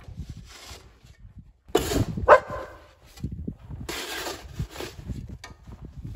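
A snow shovel scraping across packed snow and ice in several short passes, with a dog barking loudly about two seconds in.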